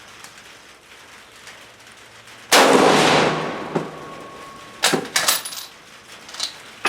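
A single shot from a Spanish FR7 bolt-action rifle firing 7.62 NATO military ball, about two and a half seconds in, its report echoing away over about a second. A couple of seconds later come a few sharp metallic clicks as the bolt is worked.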